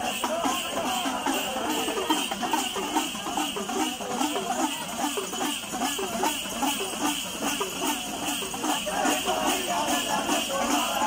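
Ritual percussion with jingling bells keeping a fast, even rhythm for an Ayyappan thullal (trance dance).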